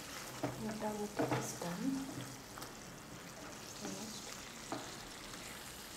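Wooden spatula stirring stuffed pointed gourds through thick simmering gravy in a frying pan over a gas flame, with a soft sizzle and a few light knocks of the spatula against the pan.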